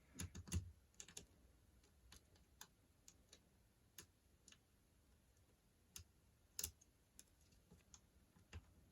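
Faint, irregular clicks and ticks of a lock pick and tension tool working the pin stack inside a padlock, one sharper click about six and a half seconds in.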